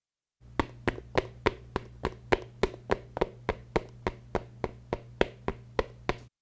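Running footsteps: an even run of about three sharp footfalls a second, over a low steady hum, starting and stopping abruptly.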